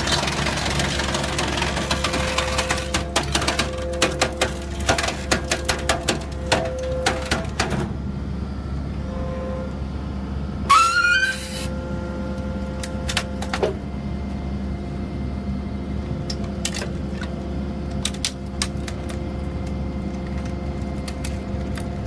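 Y81 hydraulic scrap metal baler at work: a steady low machine hum, with a run of sharp cracks and snaps as scrap metal is crushed in the press. About eleven seconds in comes a brief rising metallic screech, the loudest sound, followed by scattered clicks over the hum.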